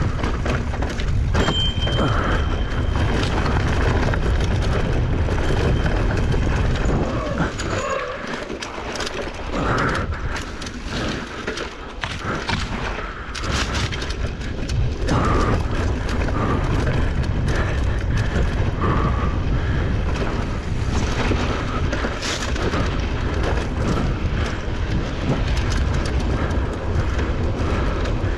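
Wind buffeting the action camera's microphone as an electric mountain bike is ridden fast over rough dirt trail, with frequent knocks and rattles of the tyres and frame over bumps. It eases for a few seconds about a third of the way in.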